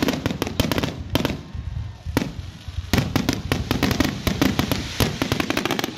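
Fireworks finale barrage: aerial shells bursting in rapid succession, several loud bangs a second. There is a short lull about two seconds in, then the bangs come thicker.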